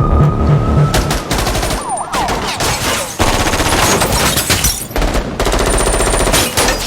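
Automatic rifles firing in long, rapid bursts in a shootout. A police siren is still rising in pitch at the start.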